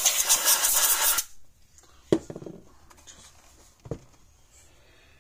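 Can of compressed air blasting with a loud hiss for about a second, blowing ants and debris out of a fence energizer's terminals. Then a sharp knock about two seconds in and a second knock near four seconds, as the open plastic case is set on the workbench.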